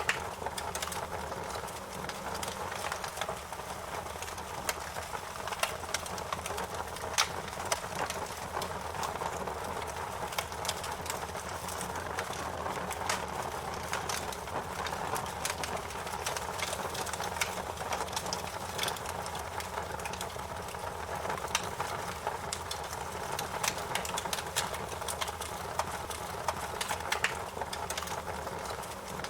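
Wood fire crackling in a fireplace: a steady low hiss of burning with frequent irregular sharp pops and snaps.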